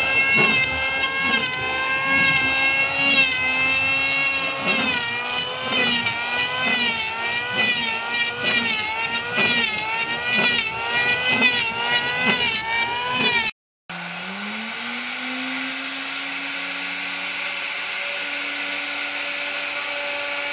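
Electric woodworking power tool's motor running, its pitch sagging and snapping back up about three times every two seconds with a knock each time. After a short drop-out about two-thirds in, a motor spins up with a rising whine and runs steadily.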